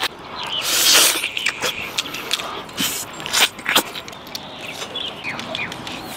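Close-up mouth sounds of someone eating meat off a braised bone: a long loud slurp about a second in, then wet smacking and clicking bites and chews.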